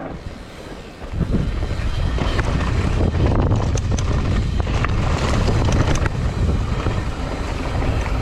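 Wind buffeting the microphone during a fast mountain bike descent on a dusty trail, with short rattles and ticks from the bike over rough ground. The rush jumps up sharply about a second in and stays loud.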